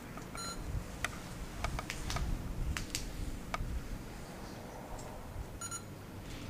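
Handheld electronic device beeping briefly twice, once about half a second in and again near the end, with scattered sharp clicks of buttons and handling between.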